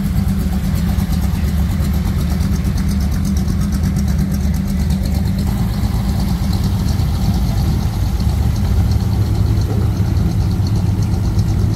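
Low, steady engine rumble of classic cars creeping past at walking pace, led by a red hot rod coupe with a big exposed V8 running at a loping idle.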